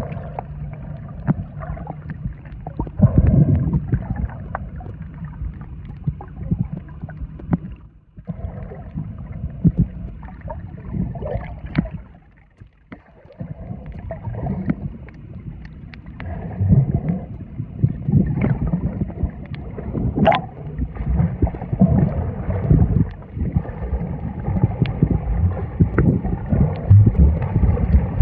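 Muffled underwater noise picked up by a camera held under the sea: an uneven low rumble of water moving around the camera, with gurgles and small clicks. It falls away briefly about eight seconds in, and again for about a second around twelve seconds in.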